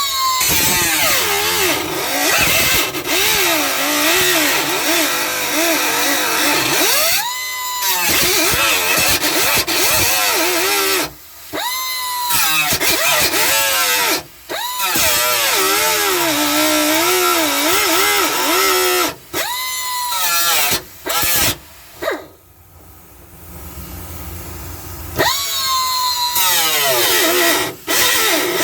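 High-speed cut-off wheel cutting through the sheet-steel floor pan of a truck cab: a whine whose pitch drops as the wheel bites into the metal and climbs back when it eases off, with a hissing grind over it. It stops and restarts several times, with a longer pause about three-quarters of the way through.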